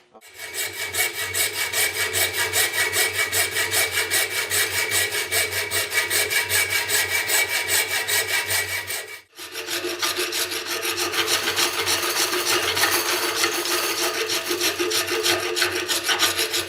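A full-tang knife handle being shaped by hand, with an abrasive tool rubbed back and forth over it in quick, even strokes. The strokes stop briefly about nine seconds in, then resume.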